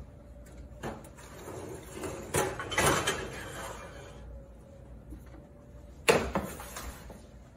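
Glass baking dish sliding onto a wall oven's wire rack with a scraping clatter about two to three seconds in, then the oven door swung shut with a sharp thud about six seconds in.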